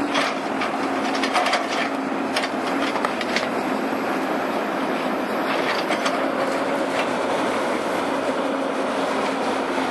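A heavy machine's engine running steadily while an uprooted almond tree's wood and roots crack and snap in its grip, with sharp cracks clustered in the first few seconds and again around the middle.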